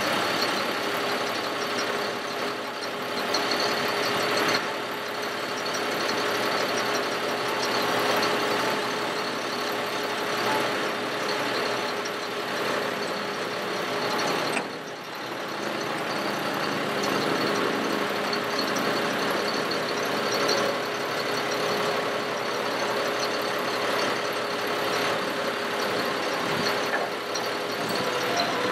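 Ford F-750 bucket truck's engine running steadily with the PTO engaged, driving the Terex Hi-Ranger aerial boom's hydraulics as the boom is lowered toward its stowed position. A steady tone runs through it, dipping briefly about halfway.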